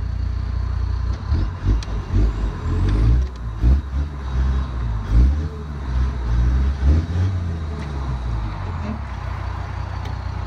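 Engine sound of a radio-controlled Bruder Land Rover Defender pick-up conversion as it manoeuvres a two-axle trailer into a parking spot. It is a low rumble that surges up and down repeatedly for the first seven seconds or so, then runs steadier.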